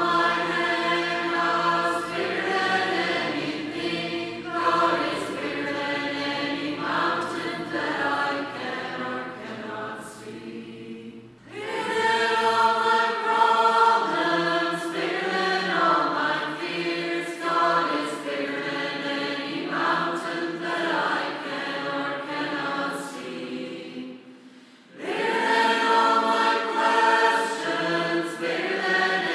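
A choir singing in long phrases, the song pausing briefly about eleven and twenty-four seconds in.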